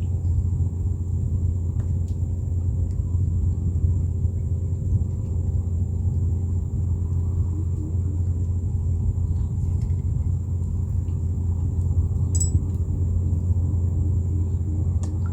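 A small boat's motor running steadily, a low even rumble with a faint hum of overtones above it.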